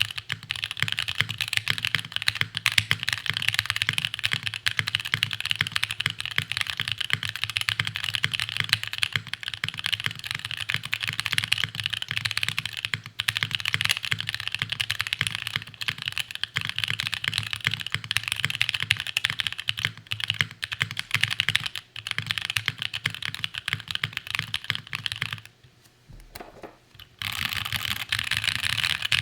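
Fast continuous typing on a plateless custom mechanical keyboard with stock Tecsee Lake Blue switches and GMK keycaps: a dense run of key clacks. The typing pauses briefly near the end, then resumes.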